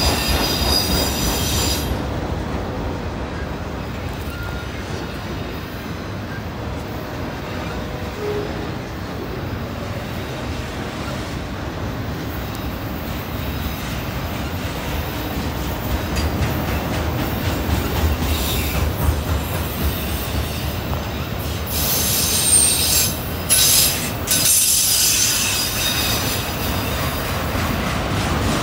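A freight train of autorack cars rolling past on a curve, with a steady rumble of wheels on rail. The wheels squeal briefly at the start and again for several seconds starting about 22 seconds in.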